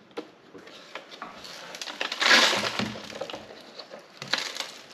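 Dirt and debris tipped from a cordless stick vacuum's dust bin into a trash can, rattling and clicking, with a louder rush of debris sliding out about two seconds in.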